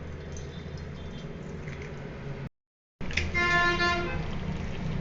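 Eggs frying in hot oil in a pan, a steady low hum with faint hiss. Halfway through, a brief dropout of sound, then a single held horn-like tone lasting under a second stands out as the loudest thing.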